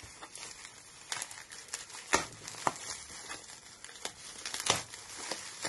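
Aluminium foil crinkling and crackling as hands unwrap a foil-wrapped knife, in an irregular run of sharp crackles, the loudest about two seconds in.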